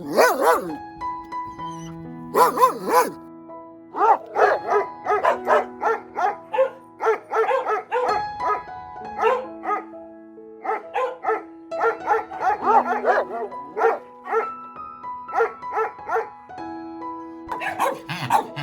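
Dog barking over and over, about two to three barks a second with a few short pauses, over background music with long held notes.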